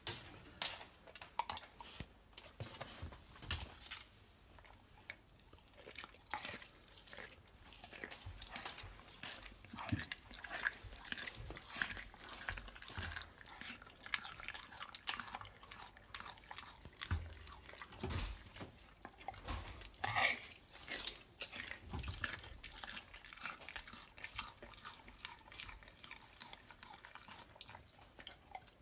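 English bull terrier licking, biting and chewing at a piece of raw beef steak held in a hand: a run of irregular mouth clicks and smacks.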